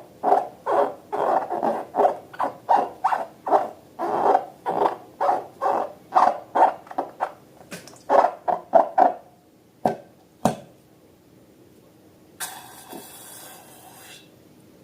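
Short squeaks, most likely a rubber balloon rubbed under the hands, come in a fast even run of about three a second for some nine seconds. Two sharp clicks follow, then a brief hiss near the end.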